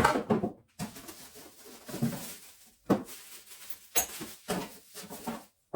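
Accessories and packaging being handled on a table: several separate knocks and clacks of plastic and metal parts over a light rustling of packaging.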